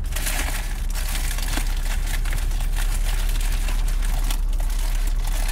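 Paper food wrapping crinkling and rustling as it is handled and opened, a dense run of small crackles, over a steady low hum.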